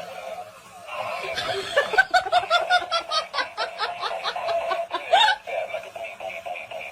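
A person laughing in a quick run of short ha-ha pulses, about four a second, for about four seconds, stopping a little after five seconds in.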